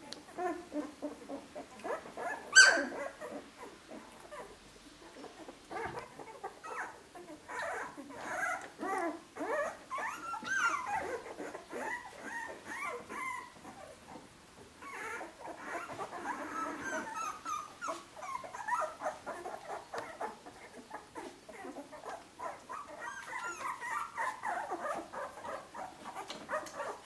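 Fifteen-day-old puppies whimpering and squeaking in a string of short cries, with one sharp, loud yelp about two and a half seconds in and the cries thickening near the end.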